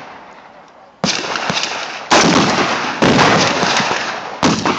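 AR-15 rifle fired four times at a slow, deliberate pace, about a second apart. Each shot is a sharp crack followed by a long rolling echo that dies away over about a second.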